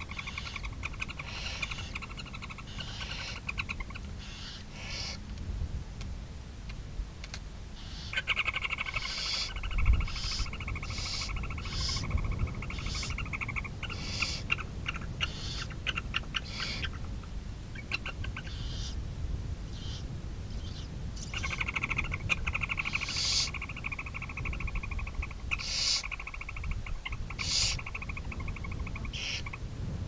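Barn owls chittering in the nest box during a feeding: bouts of fast, pulsed calls with short gaps between them, broken by short hissy bursts, over a low rumble.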